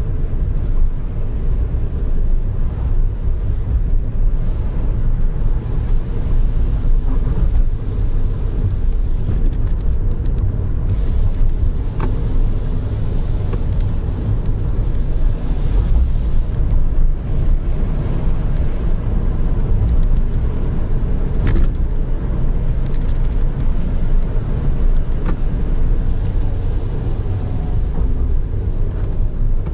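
Steady low rumble of a car's engine and tyres, heard from inside the cabin while driving, with a few sharp ticks or rattles.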